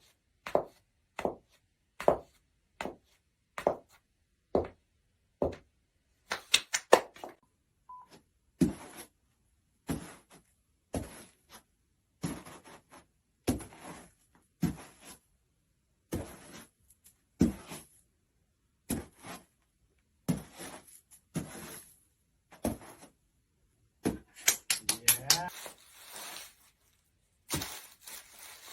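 A run of short, sharp foley sound effects: knocks, thuds and taps, about one or two a second, with quick rattling clusters around six seconds in and again near the end.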